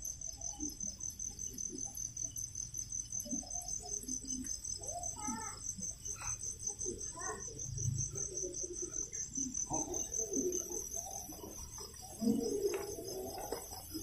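Crickets chirping in a steady, high-pitched, evenly pulsing trill.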